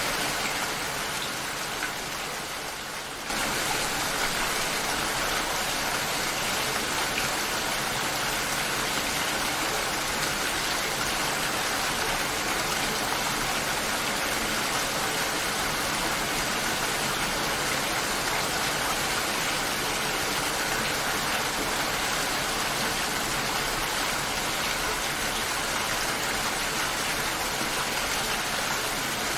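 Steady, heavy rainfall, an even hiss of drops. It is slightly softer for the first few seconds, then comes back to full level suddenly about three seconds in.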